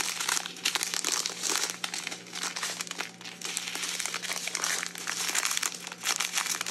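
Clear plastic bags crinkling as strips of small heat-sealed packets of diamond-painting drills are handled and turned over. The crackle runs on with a faint steady low hum underneath.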